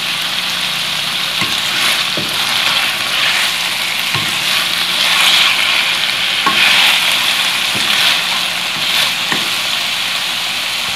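Boneless chicken pieces sizzling as they fry in hot oil in a wok, with a wooden spatula now and then scraping and knocking against the pan as they are stirred.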